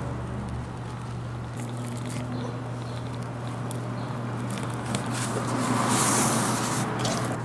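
A hand-held blade trimming a thin black sheet on a cutting mat: soft scraping and small clicks, then a louder hissing scrape near the end. A steady low hum runs underneath.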